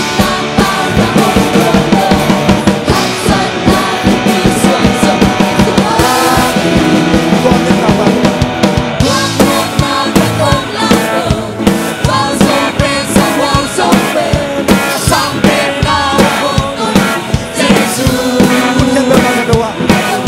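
Worship band playing a praise song, with singing voices over a steady drum-kit beat.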